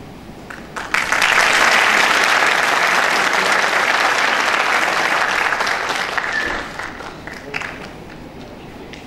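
Audience applauding: a few scattered claps, then full applause from about a second in that dies away after about six seconds, with a few last claps.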